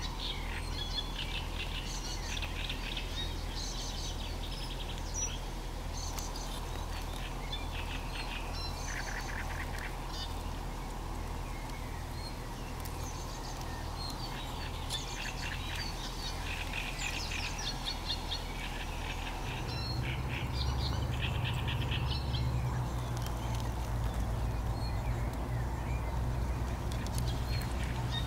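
Wild birds calling and chirping, many short calls overlapping throughout, over a steady low hum that grows louder about two-thirds of the way in.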